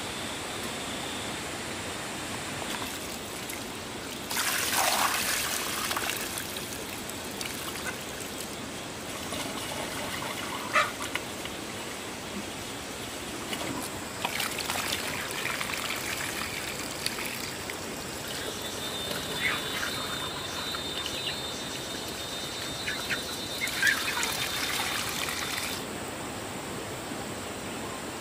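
Water splashing and trickling in several short spells over a steady rush of background noise, with a few sharp knocks.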